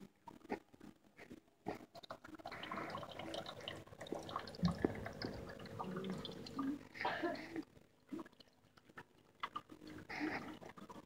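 Marine aquarium sump water gurgling and trickling in uneven bursts, with scattered small knocks and a faint steady hum underneath.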